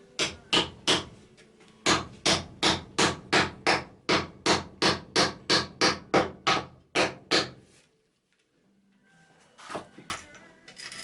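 A hand tool striking a block of mountain cherry wood while carving a kuksa: three sharp blows, a short pause, then a steady run of about sixteen more at roughly three a second.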